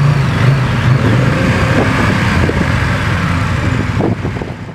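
Engines of several KTM motorcycles running together while stationary. The sound fades out near the end.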